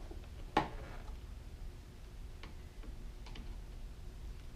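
Screwdriver tightening wire terminal screws on a motorcycle battery, metal clicking on metal: one sharp click about half a second in, then a few fainter ticks.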